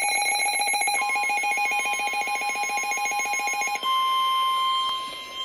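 Electronic emergency alert tones at the head of a severe thunderstorm warning broadcast. A rapidly pulsing tone is joined about a second in by a steady higher tone; a little before four seconds the pulsing stops and one steady tone carries on, the alarm that signals a warning message is about to be read.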